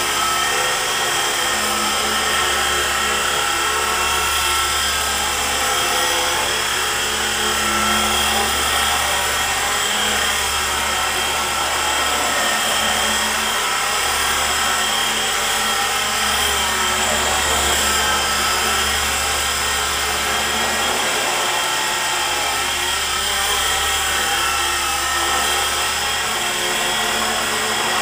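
E-flite SR120 micro RC helicopter in flight: a steady high whine of its small electric motors over the buzz of the main and tail rotors.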